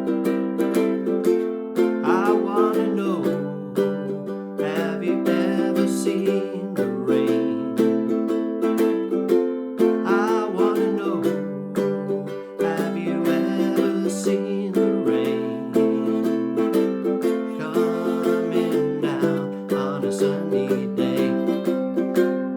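Enya EUC-MAD ukulele with Aquila Lava strings and a low-G string, strummed steadily in a regular rhythm through a run of chord changes.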